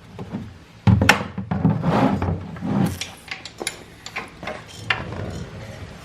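Hand tools and metal parts clicking, knocking and scraping as the shift linkage is taken off a 2008 Yamaha R6. A sharp knock about a second in is the loudest sound, followed by rubbing and several lighter clicks.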